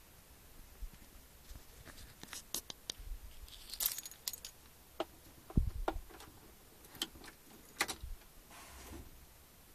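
A bunch of keys jangling, with sharp clicks and rattles, as the ignition key of a Volvo FE truck is put in and turned. There is a short low thump about halfway through.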